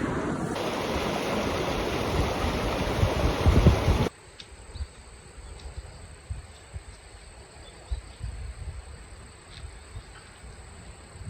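Valley stream water rushing in a loud steady wash that cuts off suddenly about four seconds in. After the cut comes quiet outdoor ambience with a thin, steady, high insect drone and a few faint ticks.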